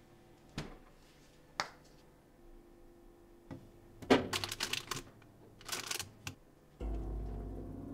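Two light clicks, then a squeeze bottle of sauce sputtering and squirting onto a plate in two spluttering bursts. A low steady drone comes in suddenly near the end.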